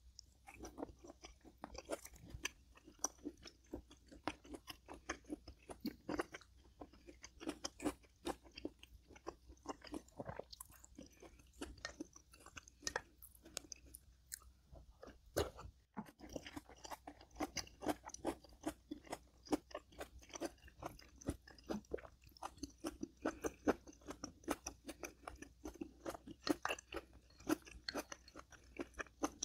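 A person chewing food close to the microphone, with wet chewing and irregular crisp crunches and clicks.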